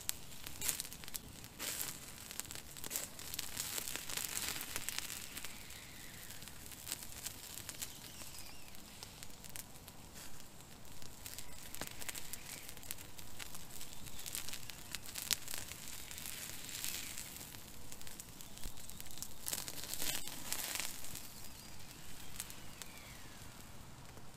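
Small wood fire crackling, with irregular sharp pops and snaps, while hot dogs roast over the flames.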